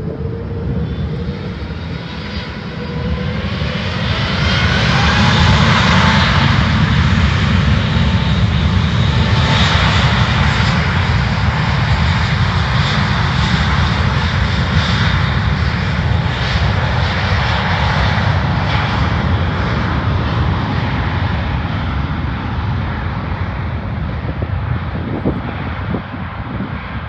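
Airbus A380-861's four Engine Alliance GP7270 turbofans at takeoff power: a rising whine over the first few seconds as the sound builds, then a loud steady roar with a deep rumble that eases slightly toward the end.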